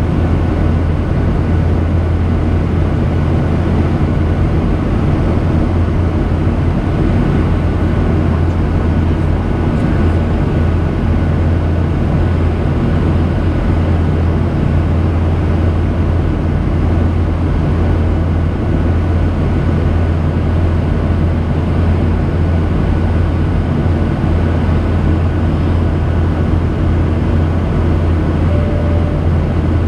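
Steady in-flight cabin noise of a Boeing 737-800 heard from a window seat beside the wing and engine: the CFM56 turbofans' drone and airflow rush, with a strong low hum and a faint steady high tone.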